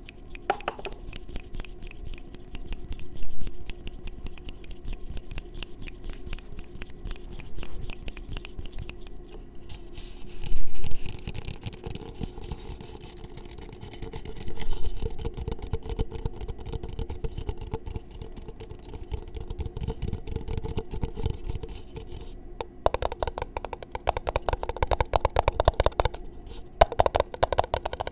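Fast, aggressive fingertip tapping and hand rubbing right against a small microphone: a dense run of rapid clicks and scratchy rubbing, with a few louder bursts.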